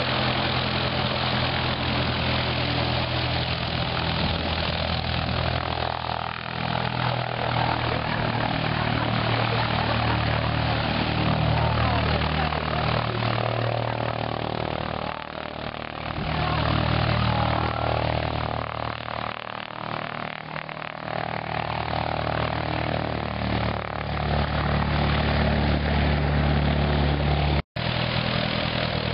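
Propeller airplane engine running steadily, with a low, even drone whose pitch shifts a little and whose level dips twice in the middle. The sound cuts out for an instant near the end.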